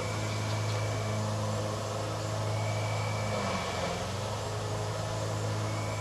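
A steady low engine or motor hum with a faint high whistle that comes and goes.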